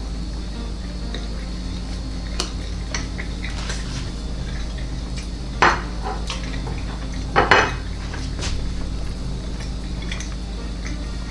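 A ceramic dinner plate being handled and set down: a few light clinks, then two louder clatters about a second and a half apart past the middle.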